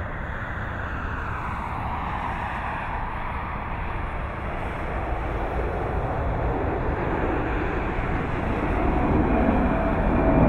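Twin-engine jet airliner at take-off thrust, climbing out toward and over the listener: a broad rushing jet roar with a whine that falls in pitch over the first few seconds, growing louder toward the end.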